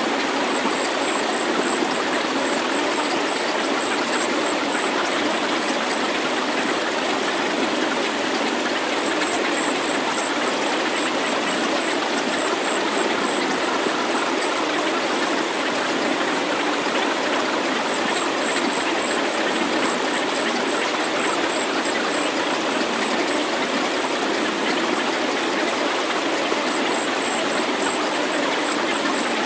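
Steady, even rushing noise with the bass cut away, like a constant hiss of falling water, with a thin high whistle that pulses on and off above it: the sound bed of a subliminal healing-frequency track.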